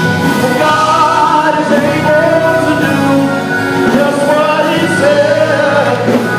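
Gospel praise music: voices singing held, sliding notes over an instrumental accompaniment with a sustained bass.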